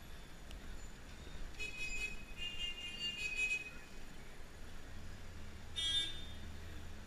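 Vehicle horns honking in street traffic over a low engine and road rumble, heard from inside a taxi. A longer honk runs for about two seconds from a second and a half in, and a short honk comes near the end.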